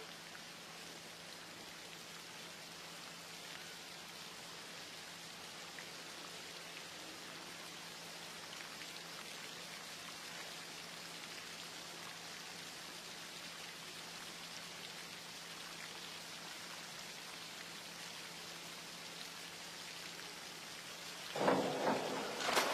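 Steady low hiss of poolside ambience. About a second before the end, it gives way to a sudden, much louder burst of crowd noise with voices.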